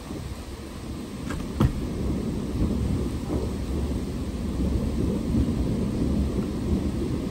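Thunder rumbling low and continuously through steady rain, swelling a little about a second and a half in. Two sharp ticks stand out near the same moment.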